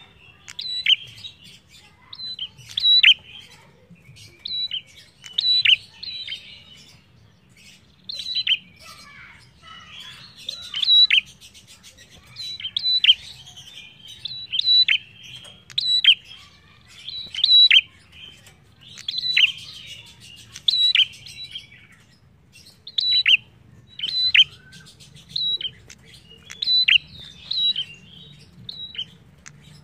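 Caged tailorbird calling over and over, a loud sharp call about every second or so, each a short high note followed by a quick falling note. The calling pauses briefly about two thirds of the way through.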